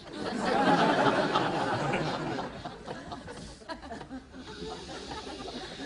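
A person sniffing hard through the nose at a paper envelope: a long, loud snuffling sniff in the first couple of seconds, then quieter, broken sniffs.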